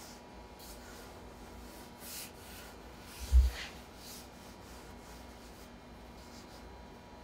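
Hands rolling ropes of potato gnocchi dough on a floured wooden counter: soft rubbing and brushing, with one dull thump about three and a half seconds in.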